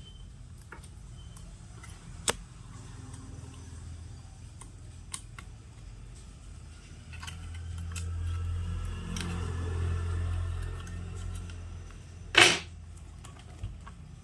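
Bench handling noise from PCB repair work: scattered light clicks and taps, a low hum swelling for a few seconds in the middle, and one loud sharp clatter near the end.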